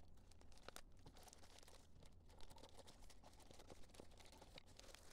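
Faint crinkling and rustling of a plastic courier mailer being torn open, with a few soft ticks.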